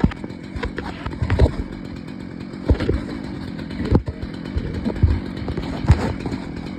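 Stihl chainsaw engine running at a steady speed, with several sharp knocks or cracks over it.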